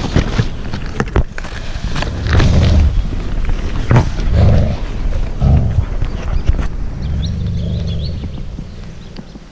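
Nylon tent fabric rustling and a handheld camera being knocked about as the tent flap is pushed open, with irregular clicks and several low rumbling swells of handling noise.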